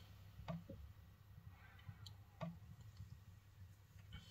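Near silence: room tone with a few faint, short clicks, about half a second in and again near two and a half seconds.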